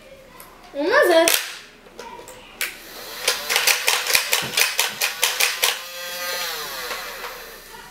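Battery-powered plastic toy dart gun switched on and firing: a rapid run of sharp clicks, about five a second, then a humming tone for over a second near the end.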